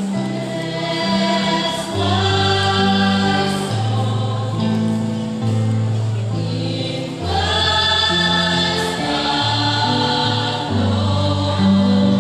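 Small mixed choir of women and men singing a slow gospel worship song through microphones, with sustained low accompaniment notes changing every second or two beneath the voices.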